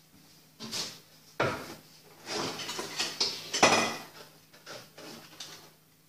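Irregular knocks and clatter of kitchen utensils being rummaged through to get out a stick blender. The loudest clatter comes a little before four seconds in, and smaller knocks follow.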